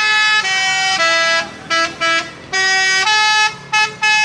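Telolet musical horn on a garbage truck playing a tune. Its notes step up and down in pitch, some held for about half a second and some short, with brief breaks between them.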